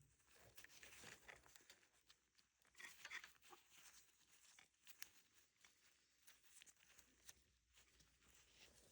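Near silence, with faint scattered rustles and small ticks of handling.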